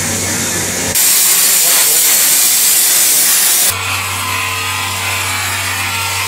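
A loud, even hiss starts about a second in and stops suddenly about three seconds later. Then a handheld rotary tool runs with a steady whine while its thin bit works into the rings of a white 3D-printed lamp.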